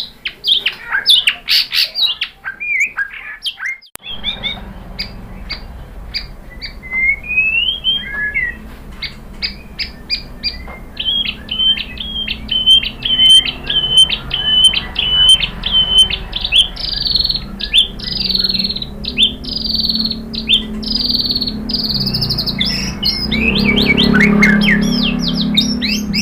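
Male white-rumped shama singing a loud, varied song of whistles and chirps, with a fast run of repeated notes in the middle and bending, falling notes later on, over a low background rumble.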